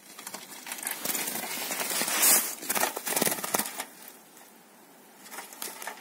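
Close rustling and crackling handling noise, with quick small clicks, around a wire-mesh bird trap cage; it is loudest about two seconds in and dies down for the last two seconds.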